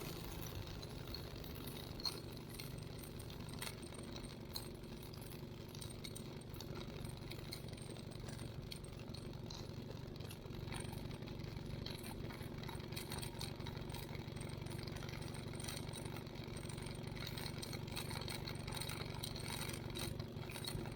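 Light airplane's engine idling, heard faint and muffled and holding a steady pitch, with small rattles and clicks over it.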